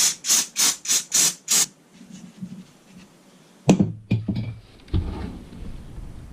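Six quick hissing blasts in a row, spraying to clean out chainsaw parts, followed by a sharp knock and clatter of parts being handled on the bench.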